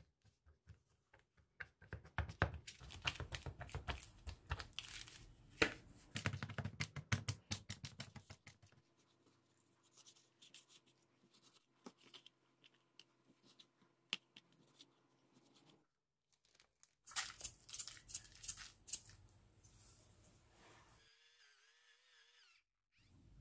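A fork pricking raw chicken breast in a plastic tray over and over, a dense run of crackly clicks and taps for the first eight or nine seconds. Then a knife cuts the chicken on a plastic cutting board with quieter, scattered taps, and near the end comes a burst of crinkling from a plastic zip-top bag.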